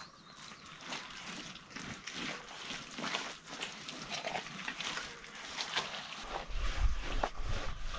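Wet mud plaster being smeared over an earthen floor by hand: irregular wet slaps and swishes. A low rumble comes in near the end.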